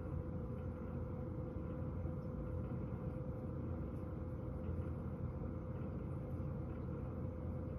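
Warm-air fan heater running with a steady hum and low rumble, a constant tone held throughout.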